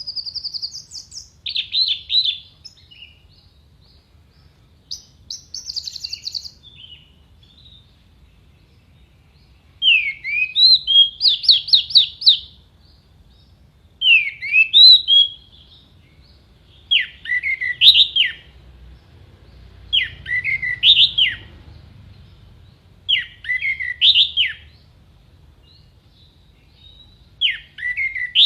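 Orange-headed thrush (anis merah) singing in loud, clear separate phrases of quick, sharp sweeping notes. The phrases are varied at first, then one short phrase is repeated about every three seconds.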